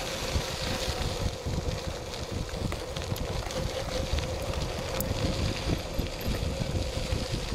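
Mountain bike rolling over a gravel and dirt trail: a steady rumble of knobby tyres on loose ground with the bike rattling, wind buffeting the microphone, and a few sharp clicks.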